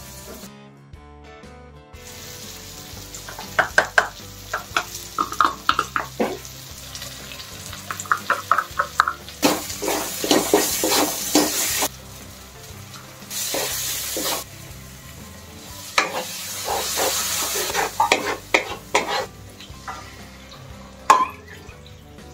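Spice masala frying and sizzling in a kadai, with a wooden spatula scraping and knocking against the pan in quick repeated stirring strokes. The sizzle swells in louder surges several times.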